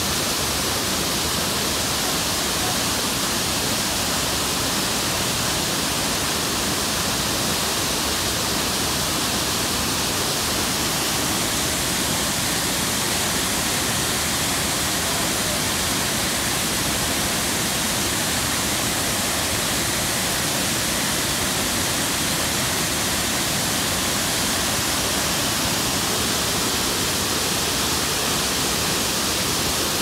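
A wide waterfall pouring into a river pool: a steady, even rush of falling water.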